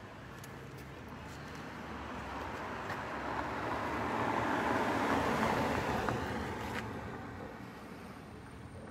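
A car driving past, its noise building steadily to a peak about halfway through and then fading away.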